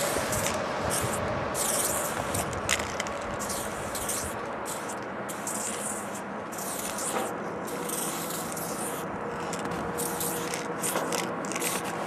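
Aerosol spray-paint can hissing in a quick run of short bursts of varying length as a tag is sprayed, over a steady low hum.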